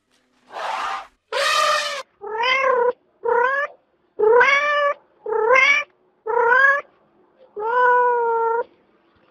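A domestic cat meowing six times in a row, each meow bending up and down in pitch, the last one long and drawn out. Near the start come two shorter, harsher, noisier calls.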